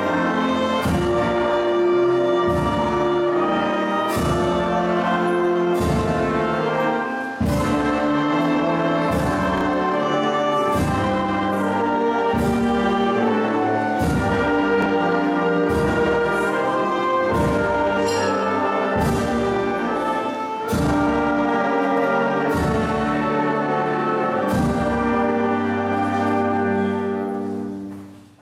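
Youth brass band (trumpets, horns, low brass, saxophones and clarinets) playing a piece of sustained chords over a steady drum beat. It fades out near the end.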